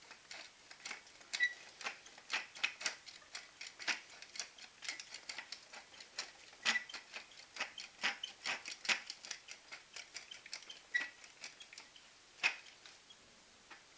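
Pepper mill being twisted to grind peppercorns: a run of irregular dry clicks and cracks, several a second, stopping shortly before the end.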